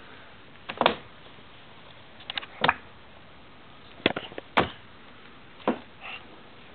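A baby's hands slapping and pressing the keys of a laptop keyboard: about half a dozen irregular plastic clacks, some single and some in quick little clusters, a second or two apart.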